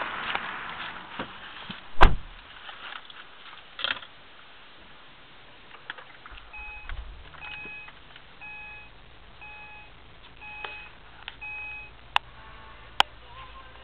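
A car door shuts with a loud slam about two seconds in. A little after six seconds the Acura TL's V6 starts at the push of the start button and settles into a low idle, while a dashboard chime beeps about eight times until near the end; two sharp clicks follow.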